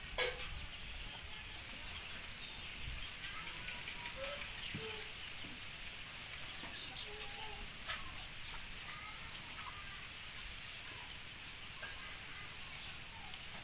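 Chickens clucking now and then over a faint steady hiss, with one sharp click just after the start.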